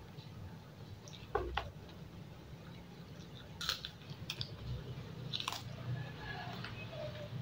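Chewing and mouth sounds of someone eating rice with side dishes by hand, with a few sharp smacks or crunches about one and a half, three and a half and five and a half seconds in, over a low steady hum.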